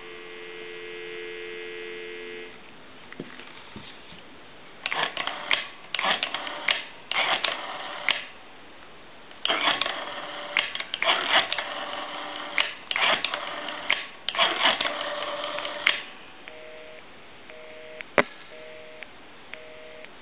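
Telephone dial tone for about two and a half seconds. Then the rotary dial of a 43A Space Saver telephone is dialed, each digit heard as a quick burst of clicks. From about sixteen seconds in, a busy signal follows, two tones pulsing on and off about once a second, as the final line check of the repaired phone.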